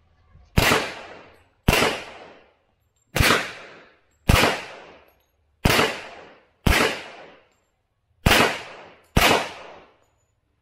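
Pistol fired eight times, in four pairs about a second apart, each shot sharp and loud with a short echo that fades out behind it.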